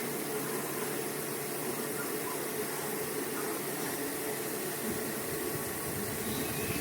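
Small portable evaporative air cooler's fan running steadily: an even airy whoosh with a faint hum.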